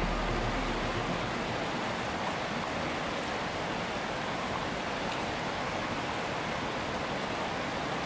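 Rushing water of a fast, rocky stream tumbling over boulders, a steady wash of noise.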